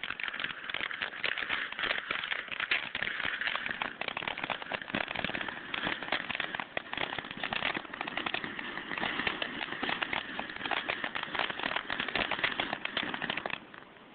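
A firework crackling and popping in a dense, rapid stream for about thirteen seconds, then cutting off shortly before the end.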